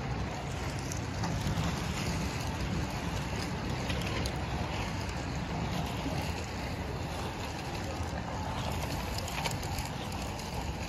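Wind rumbling on the microphone over steady outdoor background noise.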